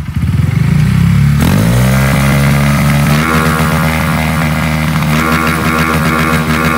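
Honda motorcycle with an aftermarket muffler revved while standing still. The engine climbs from a low rumble about a second and a half in, steps up again near three seconds, and is held at high revs.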